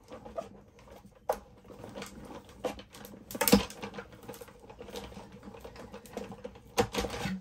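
Irregular clicks and knocks as a steel-rule die and mat board are run through a die-cutting machine, the sharpest knock about halfway through.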